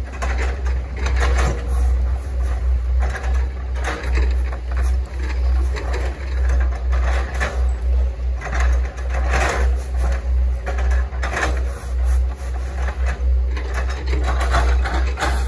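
Hitachi ZaXis 110 excavator's diesel engine running with a steady low rumble, with irregular bursts of mechanical clatter every second or two as the machine works.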